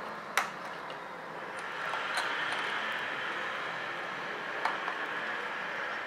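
A few sharp clicks and taps as the CPU heatsink and small parts are handled and seated inside an open laptop: the loudest about half a second in, another near two seconds, and two close together just before five seconds, over a steady background hiss.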